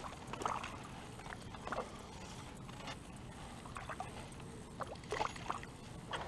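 Faint, scattered splashes and soft knocks of water and handling as a small bass is played and landed on a fly rod.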